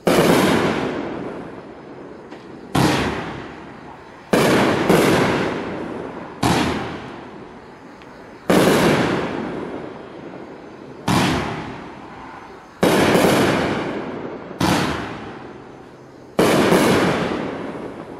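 Iron Man Singularity 24-shot 500-gram fireworks cake firing: about a dozen sharp shell-break reports, one every one to two and a half seconds with some in quick pairs, each dying away over a second or two.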